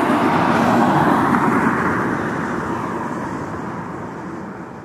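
A vehicle passing by: a rushing noise that peaks about a second in and then slowly fades away.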